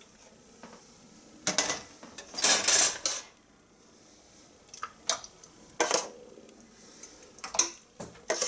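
Metal ladle scraping and clinking against a steel pot as thick jam is ladled into a glass jar through a plastic canning funnel. The sound comes as a series of separate short scrapes and knocks, the longest lasting under a second about two and a half seconds in.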